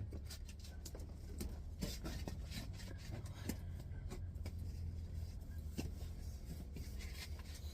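Steady low background hum with scattered light clicks and taps of things being handled.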